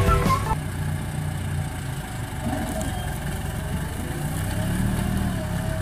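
New Holland farm tractor's diesel engine running steadily under load as it pulls a disc plough through the soil. Background music cuts off about half a second in.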